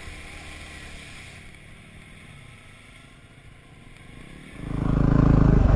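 250cc single-cylinder dual-sport motorcycle engine, quiet at first, then suddenly loud and close about three-quarters of the way through, with a rushing noise over it.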